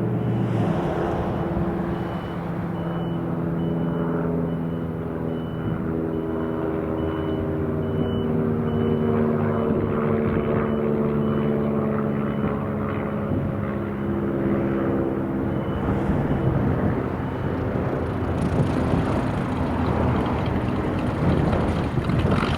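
Cessna 337 Skymaster's front and rear piston engines and propellers droning as the push-pull twin comes in to land, the engine tones drifting slowly in pitch. The sound grows rougher and noisier over the last few seconds.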